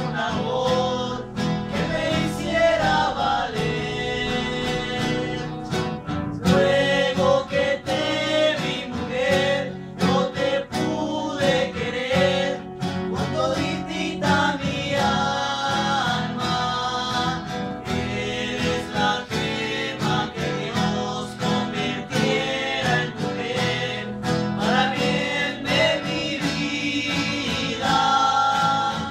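Male voices singing together in harmony to four acoustic guitars strummed and picked.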